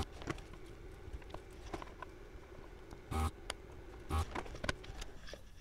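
Desoldering gun working on a power-supply circuit board: its vacuum pump sucks in short bursts, twice in the second half, over a steady low hum, with small clicks and taps of the tool and board. The hum stops shortly before the end.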